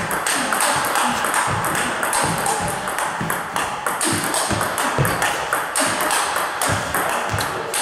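Plastic table tennis ball clicking sharply off the rubbers and the table in a fast close-to-table counter-topspin rally, several hits a second. Background music with a steady beat plays underneath.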